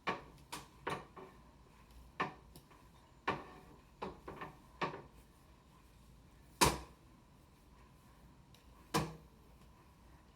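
Irregular clicks and knocks from handling a flat iron as it is clamped on and run through the hair, about a dozen, the loudest about two-thirds of the way in.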